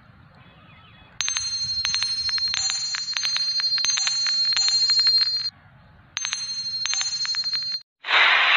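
Rapid, high-pitched bell-like dings, struck many times in quick succession in two runs separated by a short gap. Near the end a loud, harsh roar starts, the sound effect for an animated T. rex.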